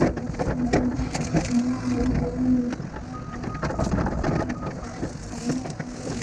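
Tracked earthmoving machine at work: a diesel engine running steadily under load, with irregular clanks and knocks as dirt is pushed and moved.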